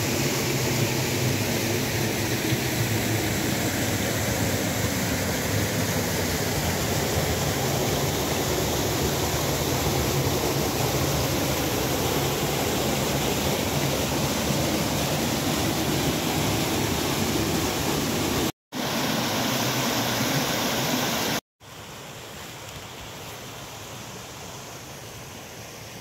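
Steady rush of water from a narrow waterfall plunging into its pool and the stream running over rocks below it. The sound breaks off abruptly twice. After the second break, near the end, the rush goes on much quieter.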